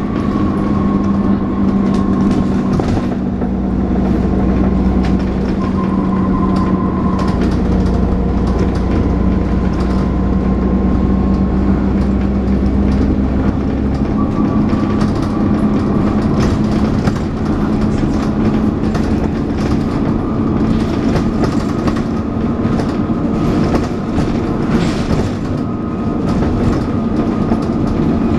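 Dennis Trident 2 double-decker bus engine running under way, with a steady hoover-like whine and some thrash. The whine dips in pitch and rises again, and a heavy low rumble comes in for about ten seconds early on.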